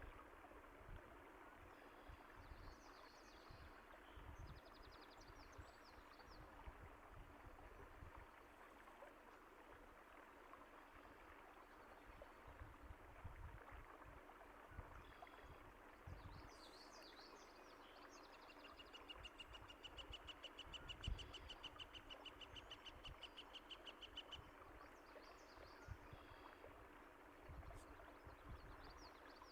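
Faint running water of a stream, steady throughout, with birds calling over it; about two-thirds of the way through one bird gives a fast, even trill lasting about five seconds. Occasional low thuds sit underneath, the loudest about two-thirds of the way in.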